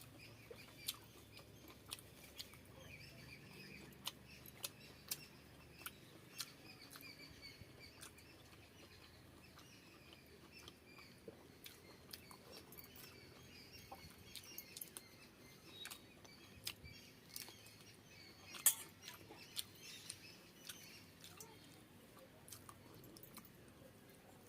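Close-miked eating sounds of a person eating pakhala (water-soaked rice) with fried fish by hand: soft, irregular wet mouth clicks and smacks of chewing, with one sharper click about three-quarters of the way through.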